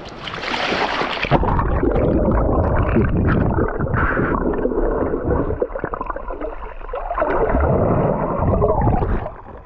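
Water splashing over an action camera, then muffled gurgling and sloshing of water around the camera's waterproof housing as it is held under the surface.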